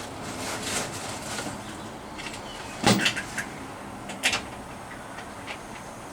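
Short crackling burst of electric welding on car body steel, fill-welding small holes. It is followed by a few sharp metal knocks, the loudest about three seconds in.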